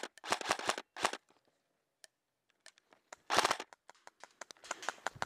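KWA AEG3 ERG electric airsoft rifle firing in quick bursts: a short string of shots at the start, one more about a second in, then after a pause a fast burst a little past three seconds, followed by fainter scattered ticks.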